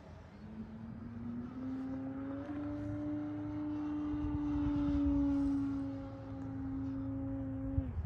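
Seagull Sport Cruiser RC model airplane in flight, its motor and propeller giving a steady buzzing drone. The drone rises a little in pitch over the first couple of seconds, is loudest about five seconds in, and stops abruptly near the end, over a low rumble.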